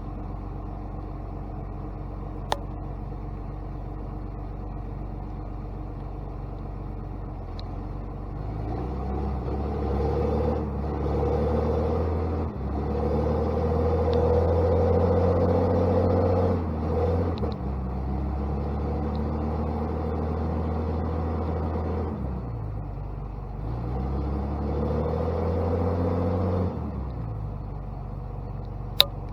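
Heavy diesel engine of a logging machine running, idling at first, then revved up about eight seconds in and held high, easing off and revving again briefly near the end, as the machine is moved. Two sharp clicks stand out, one early and one near the end.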